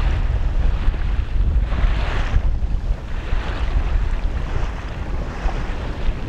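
Wind buffeting the microphone with a heavy low rumble, over the hiss of sea water rushing past a sailboat's hull that swells and eases every second or two.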